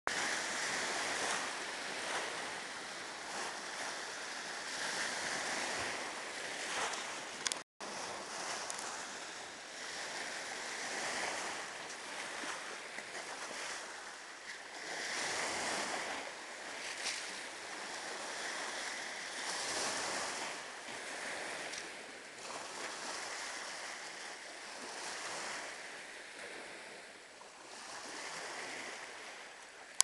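Gentle lake waves breaking and washing up on the shore, a continuous rush of surf that swells and eases every few seconds. The sound cuts out for an instant about eight seconds in.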